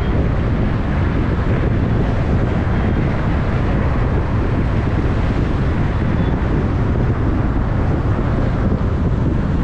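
Steady wind rushing over the microphone, mixed with road and traffic noise from a vehicle driving at speed.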